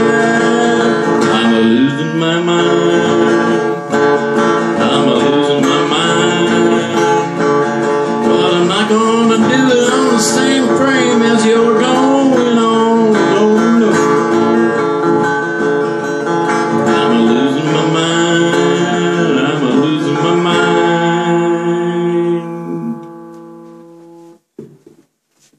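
Acoustic blues played on guitar, with a wordless melody line bending and wavering over the chords. The music ends near the end with a final chord that rings and dies away.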